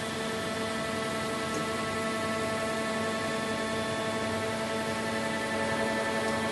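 Steady machinery hum: several constant tones over a hiss, unchanging throughout.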